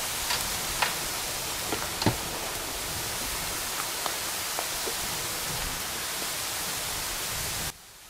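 Potato slices deep-frying in hot oil: a steady sizzle with scattered sharp pops, which cuts off abruptly near the end.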